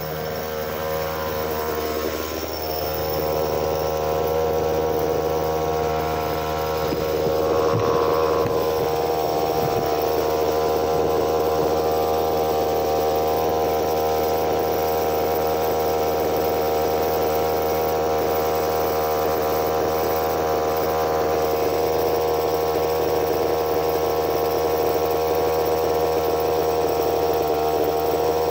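A steady droning hum built of several unchanging tones, with no rhythm or breaks, growing slightly louder over the first few seconds and then holding level.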